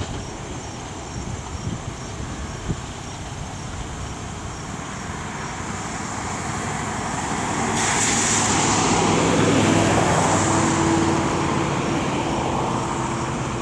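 Road traffic, motor vehicles passing, with the noise swelling about eight seconds in and a steady engine hum joining a second later.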